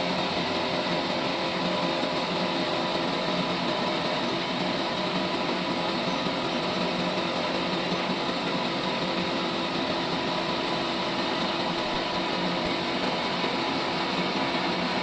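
Sawmill trolley saw running steadily, a constant mechanical whine with several unchanging tones.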